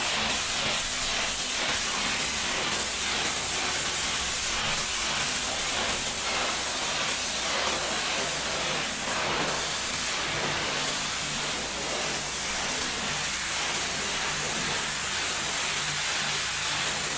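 High-pressure washer jet spraying onto the wood-and-metal slatted floor of a livestock truck body: a steady hiss of water, with a low steady hum underneath.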